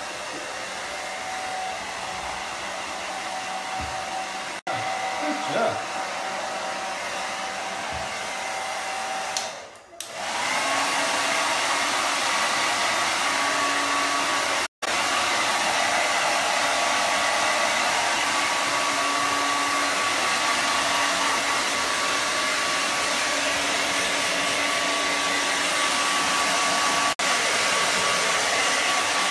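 Hair dryer blowing steadily, used to dry a dog after its bath. It cuts out briefly about ten seconds in and comes back louder, with a higher whine, as on a stronger setting.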